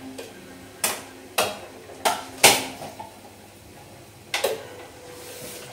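Dishes and metal cutlery clinking as food is dished out: five sharp knocks over about four seconds, the last one followed by a short ringing tone.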